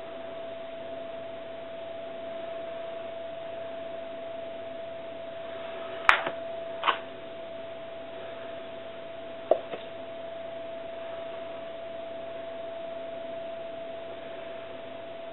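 Small film-wrapped molds of chocolate mousse handled and set down on a marble countertop: a few sharp knocks, a pair about six seconds in and another pair near ten seconds, over a steady background hum.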